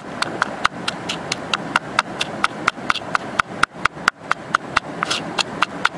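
Pestle pounding red chillies and coarse salt in a small bowl: quick, even knocks, about four a second, with the crunch of salt under each stroke.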